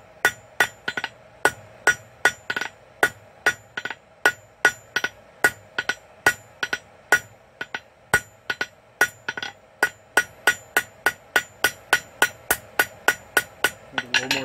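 Blacksmith's hammer striking hot quarter-inch bar on an anvil, drawing out a long taper on the end. The ringing blows come steadily at about three a second.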